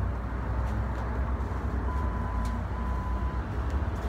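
Steady low rumble of street traffic, with a faint steady high tone for about a second and a half midway.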